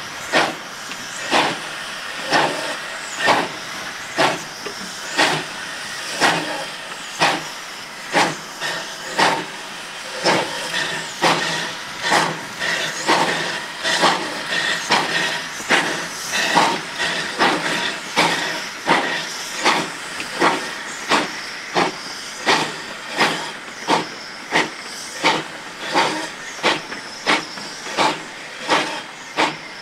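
Narrow-gauge steam locomotive #168, a 4-6-0, working steam: regular exhaust chuffs, roughly one and a half a second, over a steady hiss of steam.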